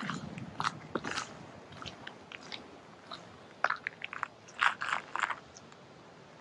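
Footsteps crunching in snow, irregular steps that stop about five seconds in.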